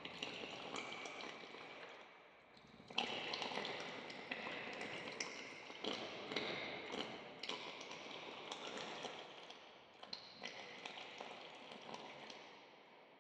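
A textured soundscape of scattered taps and clicks over a noisy hiss, with a few faint steady tones. It swells about three seconds in and fades out near the end.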